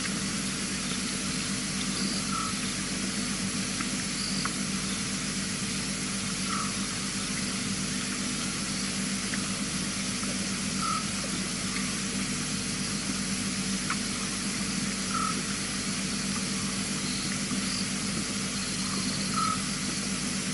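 Steady hiss with a low electrical hum from a remote wildlife camera's microphone, and a faint short note repeating about every four seconds.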